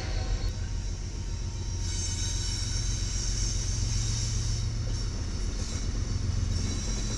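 BNSF diesel locomotives approaching on the track: a steady low engine rumble with a hiss of wheel and rail noise, growing slowly louder.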